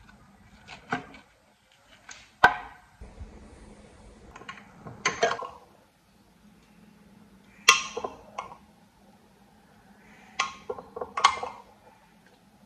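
Pieces of food dropped and knocked into a plastic blender jar: a series of sharp, irregular knocks and clatters, some with a short ring, the loudest about two and a half seconds in. The blender is not running.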